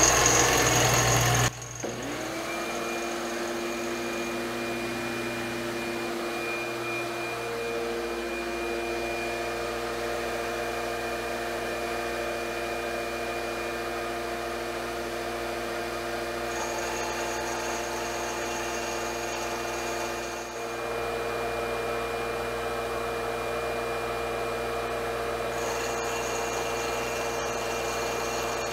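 CNC wood lathe turning a spindle with a shop vacuum running at its dust shroud: a steady machine hum carrying several steady whining tones. About a second and a half in, a louder, rushier sound cuts off suddenly, and the level dips briefly near the end.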